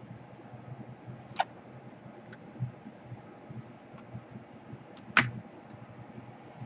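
Light handling noise of small tools and parts on a laptop's bottom case, with a few sharp clicks, two of them louder, about a second and a half in and just after five seconds.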